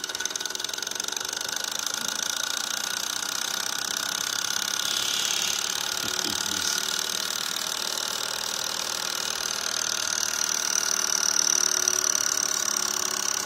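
Twin-cylinder model Stirling hot-air engine, heated by two alcohol burners, running on its own with a steady fast mechanical whir. It gets somewhat louder in the last few seconds as it runs at a pretty good clip.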